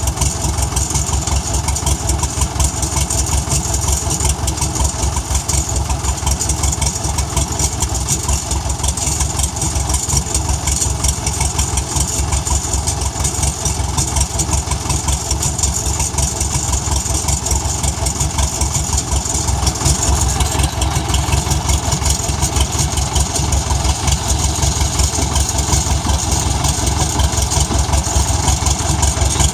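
TD7E crawler bulldozer's diesel engine idling steadily, a low, even rhythmic chugging.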